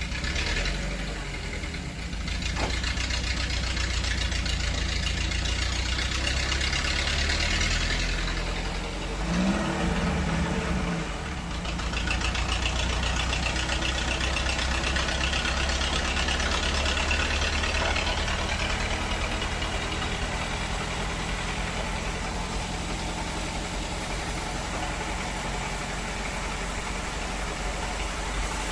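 Engine of a homemade sawmill running steadily with a deep hum. A harsher, higher layer swells over it twice, for several seconds each time.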